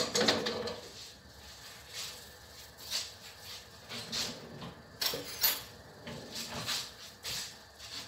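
Short scrapes and clatters of kitchen utensils: a wooden spatula stirring thick glutinous rice cooked in coconut milk and sugar in a metal wok, loudest at the start, then scattered brief knocks and scrapes.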